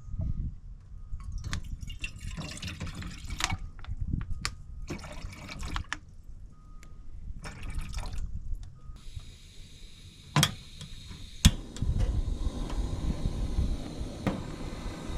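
Water splashing and dripping in short, irregular bursts. After about nine seconds a steady hiss takes over, with two sharp knocks.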